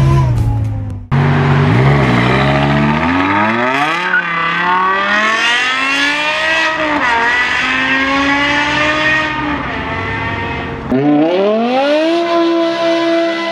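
BMW S85 V10 engine revving hard, its pitch rising and falling as it accelerates through gear changes. After a cut about 11 s in, the revs climb again and hold high and steady.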